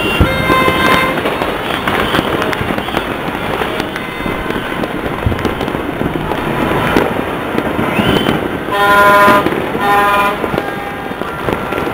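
Many fireworks and firecrackers popping and crackling across the city at once, a dense continuous crackle of reports. About nine seconds in, horns toot twice over the crackle.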